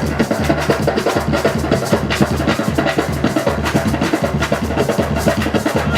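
Drum-led music: fast, busy percussion strikes over sustained low notes.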